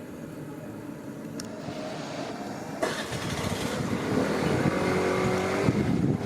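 A vehicle approaching, its running noise growing steadily louder from about two seconds in, with a steady hum in the second half and a sharp click near the middle.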